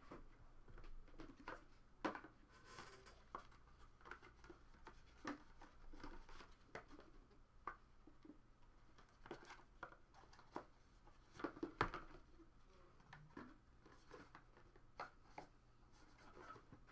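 Faint, scattered small clicks and rustles of objects being handled on a desk, over quiet room tone.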